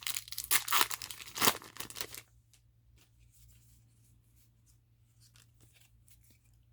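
Foil booster pack wrapper being torn and crinkled for about two seconds, a dense crackling rustle. After that come only faint light ticks of cards being handled.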